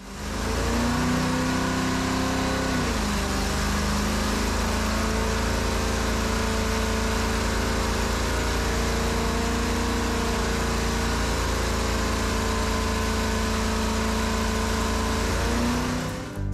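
1992 GMC TopKick's 366 tall-deck V8 with throttle-body injection idling steadily. Its speed dips a little about three seconds in and comes up slightly just before the end.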